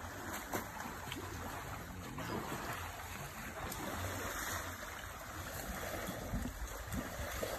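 An African elephant splashing and sloshing water as it bathes and rolls in a pool, heard as a steady wash of water noise with small splashes.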